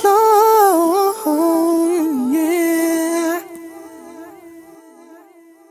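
Song outro: a lone wordless hummed vocal melody with no beat. It drops away about three and a half seconds in and then fades out.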